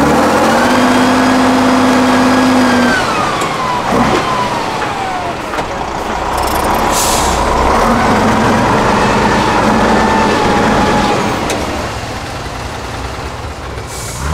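Tatra 8x8 trial truck's diesel engine labouring over rough ground: held at high revs, then dropping off, twice. A sharp knock comes about four seconds in, and a short hiss of air about halfway through.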